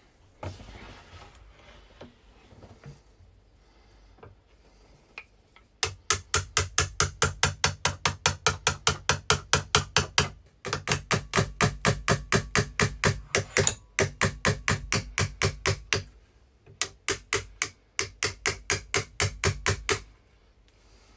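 Rapid, evenly paced strokes of a steel hand tool shaving the wooden handle scales of a saw-blade marking knife, about six strokes a second. They come in several runs with short breaks, starting some six seconds in.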